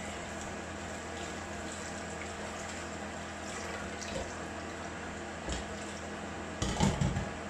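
Tap water running into a stainless steel kitchen sink while a bowl is scrubbed with a sponge under it. Near the end there are a few louder knocks and splashes as the bowl is handled.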